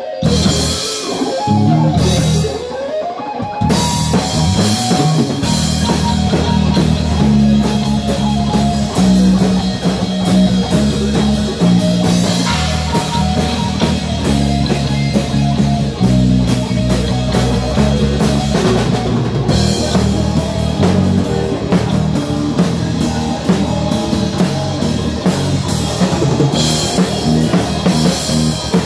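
Live heavy metal band playing: distorted electric guitar, bass guitar and fast drumming on a kit with crashing cymbals. In the first few seconds the low end drops out twice for short stop-start breaks; after that the band plays on without a break.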